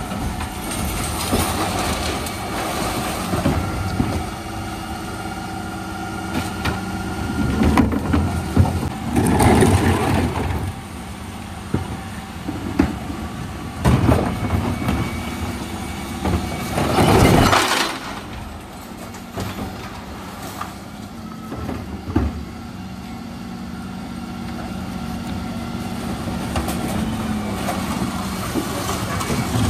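A Dennis Elite 6 refuse truck's engine runs steadily while its rear bin lifters cycle. Several loud crashes and clatters are heard, the biggest about 17 seconds in, as wheelie bins of plastics, cans and glass and bags of recycling are tipped into the hopper.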